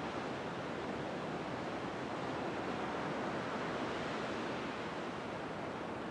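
Ocean surf breaking on a sandy beach, heard from a distance as a steady, even wash with no single wave standing out.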